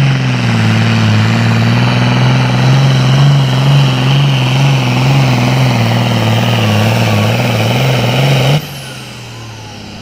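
Diesel engine of a John Deere super farm pulling tractor running at full throttle under the load of the sled, its pitch wavering up and down as it pulls. About eight and a half seconds in, the throttle is cut at the end of the pull and the sound drops sharply.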